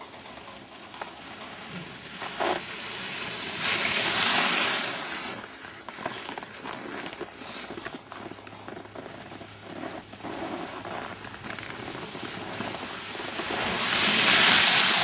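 Skis hissing and scraping over snow, swelling twice into a louder rush, once about four seconds in and again near the end.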